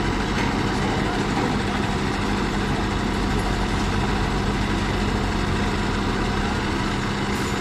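Rotary piling rig's diesel engine running steadily, with a constant low hum.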